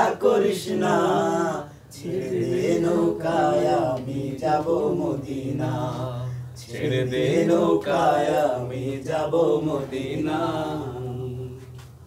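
A man singing unaccompanied in a slow, chant-like style, with long held notes and short breaks between phrases.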